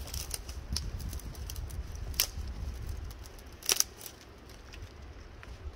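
Dry twigs and kindling crackling and snapping as a small fire is lit and fed with sticks: scattered sharp cracks, the loudest a quick pair a little past halfway, over a low rumble.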